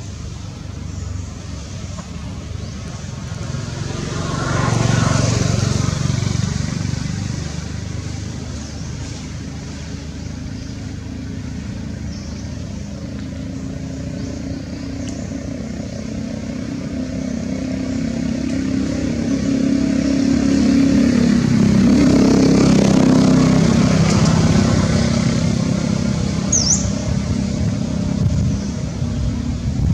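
Motor vehicles passing, their engine and road noise swelling and fading twice: once about five seconds in, and again, longer, in the second half. A brief high chirp sounds near the end.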